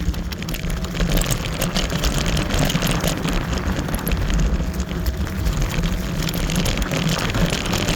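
Wind buffeting the microphone over tyre rumble while riding a Kaabo Wolf Warrior electric scooter, with scattered crackles and a faint steady whine.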